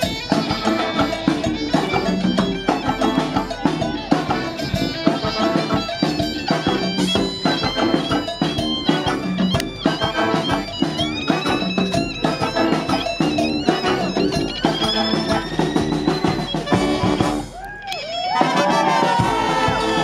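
A live brass street band playing loud, dense music: trumpets and saxophones over a clarinet, sousaphone and steady drum beat. The music thins out for a moment near the end, then the horns come back in with sliding notes.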